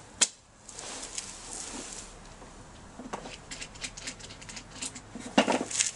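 Small metal clicks and taps of compression tester adapter parts being handled and screwed together, with a sharp click at the start and a louder clatter near the end.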